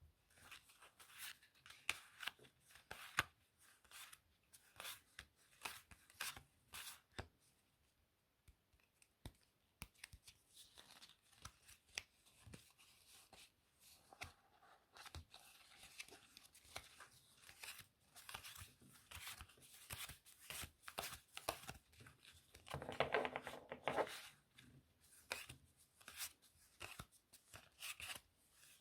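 Playing cards handled close to the microphone: irregular soft snaps, flicks and taps of card stock. About three quarters of the way through comes one louder run of rapid fluttering clicks lasting about a second.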